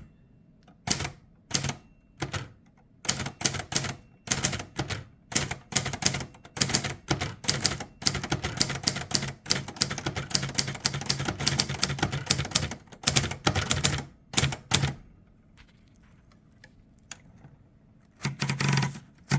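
Second-generation Hermes 3000 manual typewriter being typed on: a few single keystrokes, then a fast, steady run of key strikes that stops about fifteen seconds in. Near the end comes a louder, longer mechanical sound.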